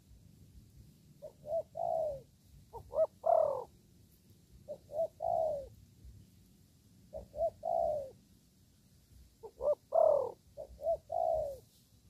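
Spotted dove cooing: four phrases, each of two or three short notes and a longer falling coo, spaced a couple of seconds apart.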